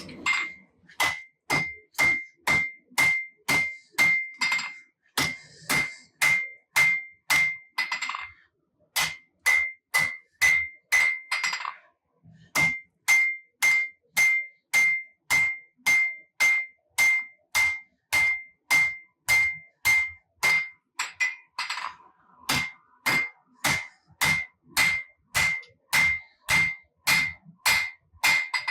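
Hammer blows on a hot Damascus steel billet over an anvil, about two a second, each with a clear ring, as the billet is drawn out; the hammering pauses briefly twice.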